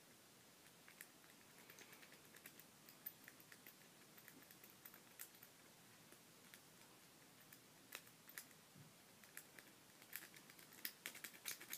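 Faint, irregular small metallic clicks and ticks of a Bogota rake and tension wrench being worked in a Master Lock No. 1 padlock, raking the pins; the clicks come quicker and a little louder near the end.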